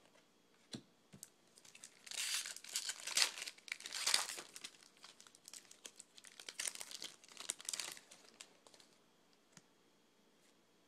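Foil trading-card pack wrapper being torn open and crinkled by hand. The crackling comes in several bursts from about two seconds in, loudest early on, and dies away near eight seconds.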